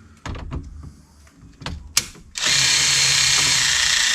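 Power driver spinning out a Torx fastener, running steadily for about two and a half seconds from just past halfway, with a steady hum and whine. A few light taps and a sharp click come before it starts.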